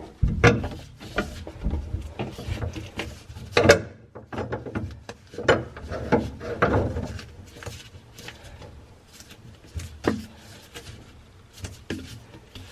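Drain pipe and fittings knocking, clattering and scraping as they are handled and fitted together to connect a garbage disposal, in irregular knocks with the loudest a few seconds in.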